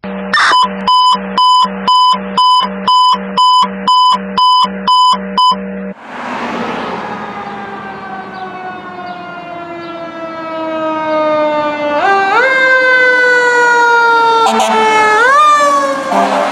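A steady tone pulsing on and off about twice a second for the first six seconds. Then a fire engine's siren wails, sliding slowly down in pitch, and is wound back up sharply twice, growing louder as the engine comes close.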